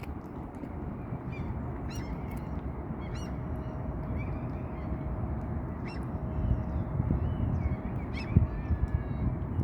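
Scattered short bird calls over a steady low rumble, with a faint steady hum joining about halfway through.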